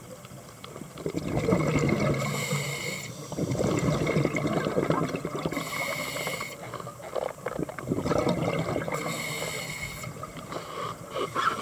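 A scuba diver's regulator breathing underwater: three short hissing inhales through the demand valve, each followed by a longer, louder bubbling, gurgling exhale.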